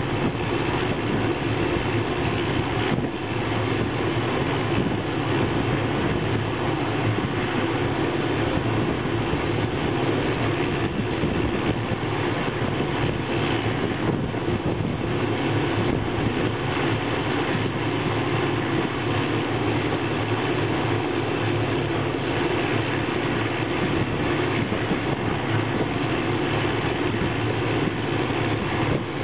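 Hughes 500C helicopter's Allison 250 turboshaft engine running steadily on the ground, with the main and tail rotors turning during startup before lift-off.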